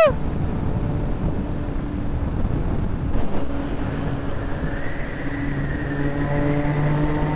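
Motorcycle riding through a road tunnel: a steady rush of wind and road noise, with the engine's note coming through more clearly about five seconds in.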